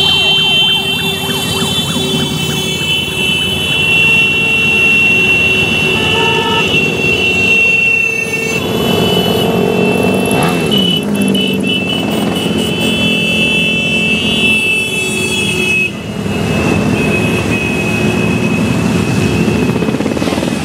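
A parade of motorcycles, scooters and cars passing on the road, engines running, with long steady horn tones sounding over them for much of the time.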